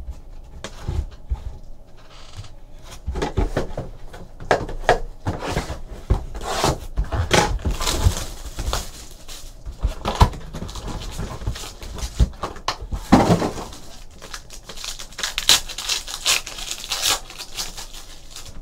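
Foil trading-card pack wrappers crinkling and tearing open, and cards being handled and shuffled: a run of irregular rustles and clicks.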